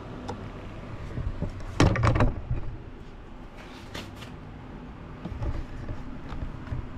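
Handling noise: a quick cluster of knocks and clicks about two seconds in, a smaller cluster about four seconds in, and a few faint ticks, over a low steady hum.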